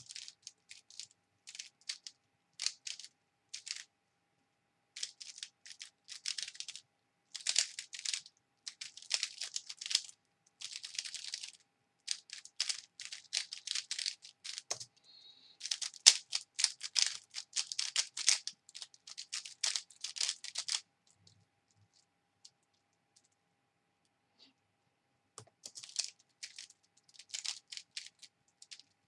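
A 3x3 speed cube being turned by hand: the plastic layers give rapid clicking clacks in quick runs of turns. The clicking stops about three-quarters of the way through, for four seconds, then starts again.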